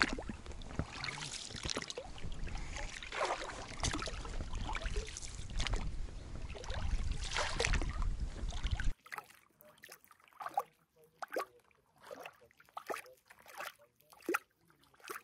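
Oars splashing and dipping as an inflatable rowboat is rowed, over a steady low rumble, with a few louder swells of splashing. About nine seconds in the sound cuts to quieter, separate small splashes and water lapping.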